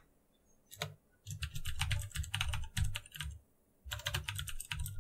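Typing on a computer keyboard: a single keystroke just under a second in, then two quick runs of keystrokes with a short pause between them.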